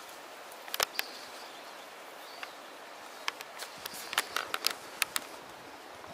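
Outdoor background hiss with scattered sharp clicks and ticks, most of them bunched together between the middle and the end.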